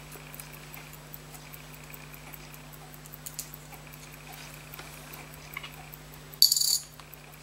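Faint small metallic clicks of steel tweezers working on a pocket watch movement as the ratchet wheel is lifted off the mainspring barrel, over a steady low hum. About six and a half seconds in comes a short hiss, the loudest sound.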